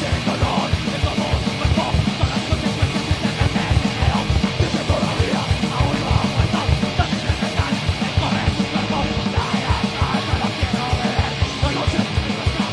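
Live heavy metal band playing at full volume: distorted electric guitars and bass over a drum kit with a fast, steady run of kick-drum strokes.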